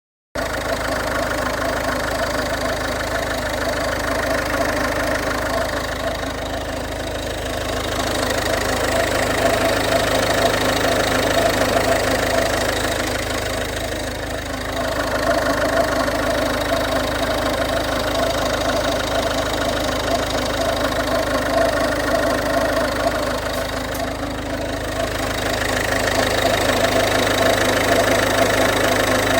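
2011 Ford Fiesta 1.4 TDCi four-cylinder diesel engine idling, with a steady whine running through it that swells and fades slightly every several seconds. The owner suspects a noisy pulley or a failing alternator.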